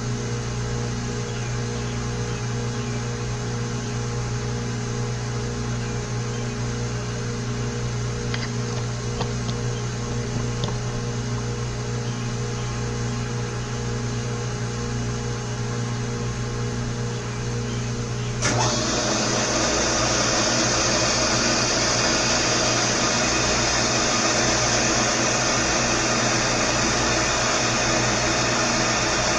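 Older milling machine running steadily with a low motor hum while a Woodruff keyseat cutter sinks a seat for a No. 809 Woodruff key in a steel baler roller shaft. About eighteen seconds in, a louder, steady hiss suddenly sets in and holds.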